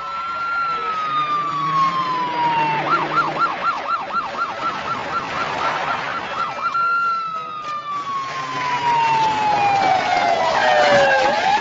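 Police car siren. A slow wail falls in pitch, then switches to a fast yelp of about four warbles a second for some four seconds, then returns to a long falling wail that swings back up near the end.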